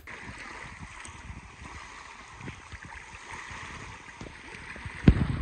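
Wind buffeting the microphone outdoors: an irregular low rumble over a steady hiss, with one sharp knock about five seconds in.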